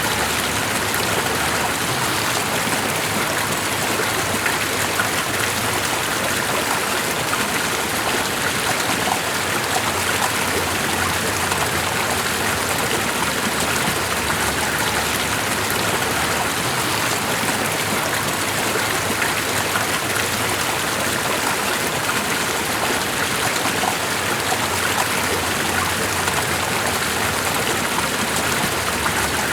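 Steady, unbroken rush of water with fine splashing detail, as from a flowing stream or falling water.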